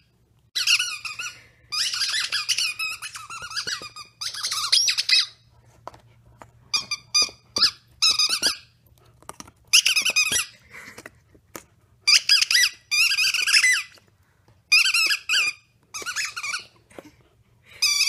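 Squeaker toy squeaking fast and over and over as a husky puppy chews it: bursts of rapid high squeaks, some lasting a second or more, broken by short pauses.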